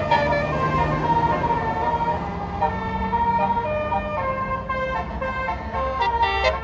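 Bus musical air horn (basuri telolet horn) playing a tune of held notes that step from one pitch to another, over the low hum of the bus engine.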